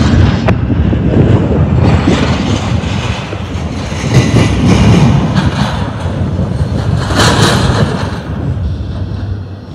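Double-stack intermodal well cars of a freight train rolling past close by, their steel wheels rumbling and clattering on the rail, with a sharper burst about seven seconds in. The noise falls away near the end as the last car passes.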